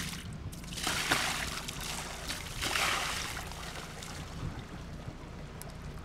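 Water sloshed from a plastic bucket onto a sailboat's foredeck to rinse it, in two splashes about one and three seconds in.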